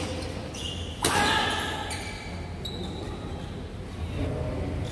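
Badminton racket striking a shuttlecock with one sharp crack about a second in, echoing through the sports hall, over a steady low hum.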